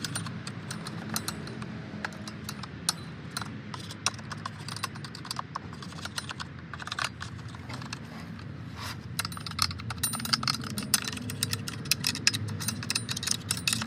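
Loose chainsaw parts clinking and rattling as they are handled: many light metallic clicks, growing busier about two-thirds of the way through, over a steady low rumble.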